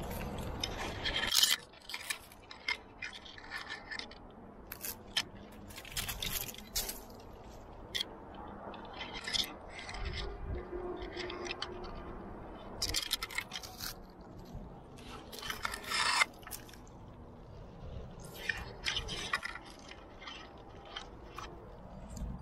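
Irregular scrapes and rubs close to the microphone from a climber moving up rock: hands, shoes and body scraping on the stone, loudest about a second and a half in.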